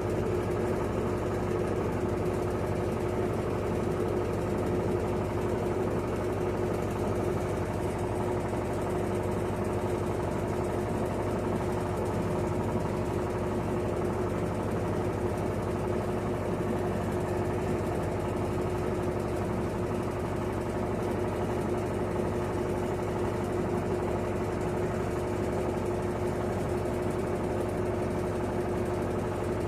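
Electrolux LT12F washing machine spinning a load of rugs at a steady speed: a constant motor hum with one steady tone, unchanging throughout.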